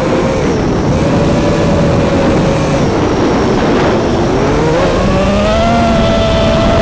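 Armattan Rooster FPV quadcopter's brushless motors and propellers whining close up from the onboard camera. The pitch dips about three and a half seconds in as the throttle comes off, then rises again.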